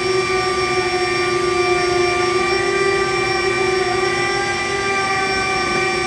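Embraer 170 hydraulic system pumps whining steadily under load while the landing gear retracts during a gear swing, the pitch wavering slightly as the gear moves.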